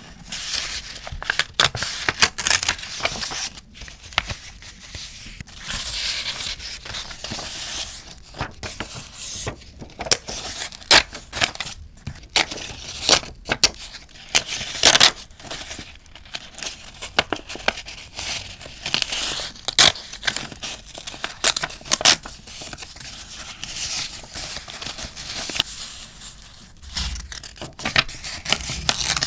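Paper being torn and crinkled by hand for journaling, in a run of short rustles and sharp ticks, with a campfire crackling underneath.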